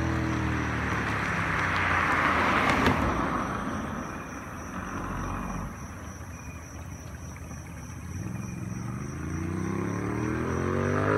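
A vehicle passes close by with a swell of road noise about two to three seconds in, then fades away. From about eight seconds in, a Ducati Scrambler's L-twin engine through an SC Project full exhaust approaches, its pitch climbing as the bike accelerates and growing louder near the end.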